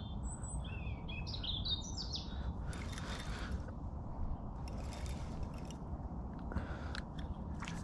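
Small birds chirping in quick rising and falling high notes for the first couple of seconds, over a steady low outdoor rumble. A few short rustling noises come later.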